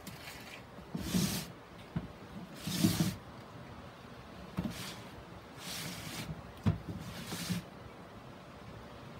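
Gloved hands handling a moss-packed staghorn fern on a plastic grid board: several short bursts of rustling and scraping, with a few sharp knocks.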